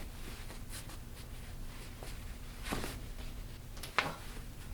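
Soft rubbing of hands on skin, then one sharp crack about four seconds in: a toe joint popping under a chiropractic adjustment.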